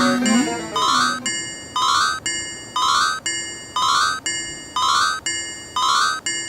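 Electronic level-crossing alarm bell (fumikiri) ringing in a steady repeating clang, about two strikes a second, with a lower tone on every other strike. It starts about a second in, after a short gliding synth melody ends.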